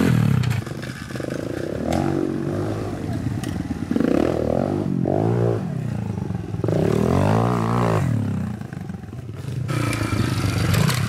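Small pit bike engine revving up and dropping off several times as the bike is ridden hard and jumped.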